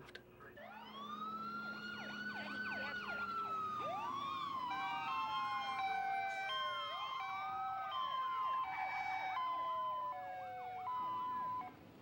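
Emergency vehicle sirens on a fire rescue truck and an ambulance responding: a long wail that rises and then slowly falls, with faster sweeping yelps over it, joined about five seconds in by a hi-lo two-tone alternating between two notes. The sirens stop near the end.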